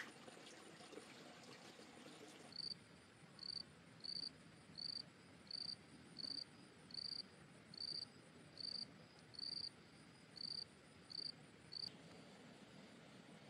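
A cricket chirping in a regular rhythm: about thirteen short, even, high chirps a bit under a second apart. It starts about two and a half seconds in and stops shortly before the end, over faint background hiss.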